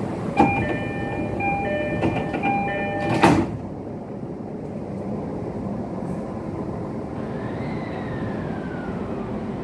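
A train's electronic chime plays a short repeating pattern of several notes for about three seconds and ends with a heavy thud. After the thud the sound turns duller, a steady rumble carries on, and a whine falls in pitch near the end.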